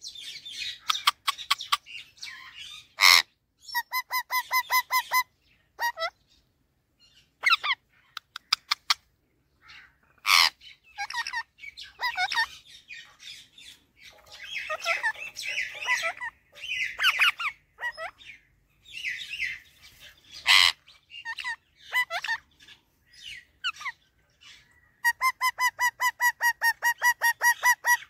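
Rose-ringed parakeet (Indian ringneck) calling: chattering and short chirps, broken by a few loud shrill screeches, with rapid runs of repeated notes at about six a second, the longest near the end.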